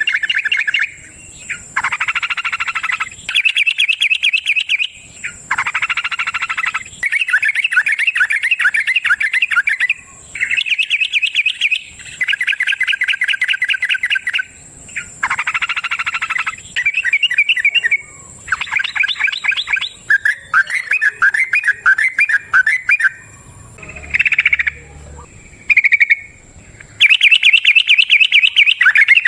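Yellow-vented bulbul (trucukan) singing its long 'ropel' song: rapid chattering trills in bursts of one to three seconds, separated by brief pauses.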